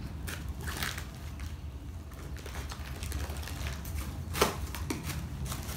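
Cardboard box being opened by hand: scattered scratching and rustling of cardboard, tape and packing paper, with one sharper crack about four seconds in. A steady low hum runs underneath.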